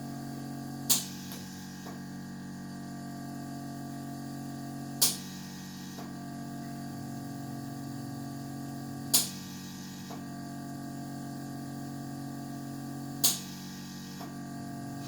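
Vacuum massage apparatus running with a steady hum, clicking sharply about every four seconds, each click followed by a fainter one about a second later, as it cycles the suction on and off.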